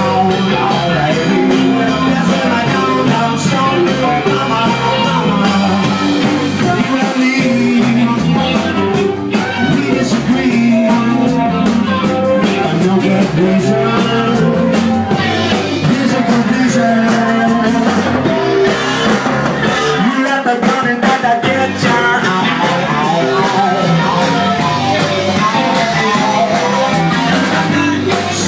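Live rock band playing: a singer's voice over guitar and drums, loud and continuous.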